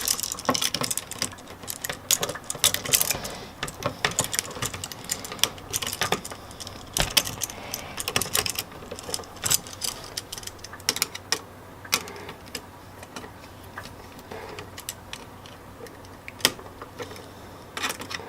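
Small metallic clicks and rattles of copper wires and a flat-head screwdriver being worked on a wall outlet's terminal screws as the wire loops are fitted and tightened. The clicks are irregular, thick in the first half and sparser later.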